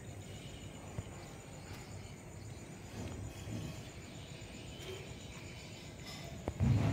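Faint, steady high insect trill over low outdoor background noise, with a single soft click about a second in and a brief low rumble near the end.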